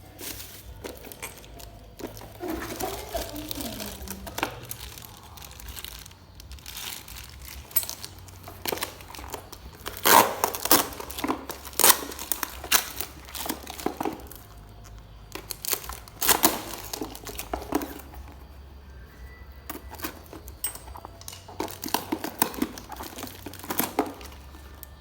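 Packaging being handled while unboxing a bicycle hub: crinkling and tearing in irregular bursts, loudest about halfway through.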